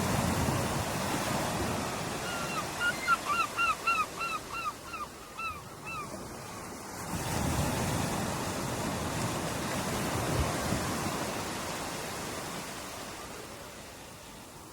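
Ocean surf washing onto a shore, swelling near the start and again from about seven seconds in. About two seconds in, a bird gives a fast series of a dozen or so short calls, about three a second, that fade out after a few seconds.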